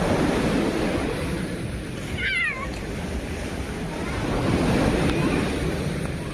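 Waves of the Sea of Azov washing ashore, swelling and easing, with one short, wavering high call about two seconds in.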